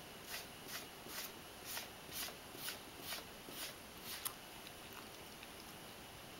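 A cat crunching a mouthful of dry kibble, about two crisp bites a second for roughly four seconds, followed by a single sharp click.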